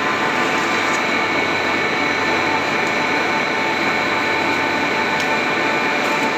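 Plastic recycling machine running steadily under power, a loud even machine noise with a few steady whining tones and faint ticks.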